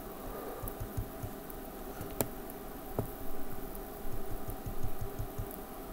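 Two sharp clicks of a computer mouse, about a second apart, over a steady room hum, with a run of soft low thumps in the second half.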